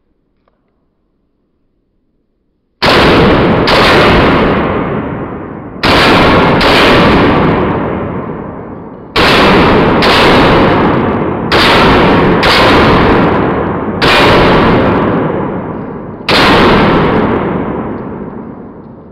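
Semi-automatic pistol fired about ten times, mostly in quick pairs a little under a second apart, each shot followed by a long echoing tail. The first shot comes about three seconds in, after near silence.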